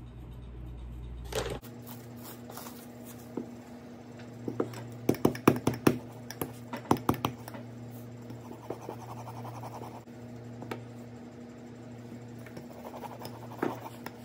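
Hands pressing and patting a ball of pie dough on a floured granite countertop, with a cluster of sharp knocks on the stone a few seconds in, then a wooden rolling pin rolling the dough near the end. A steady low hum runs underneath.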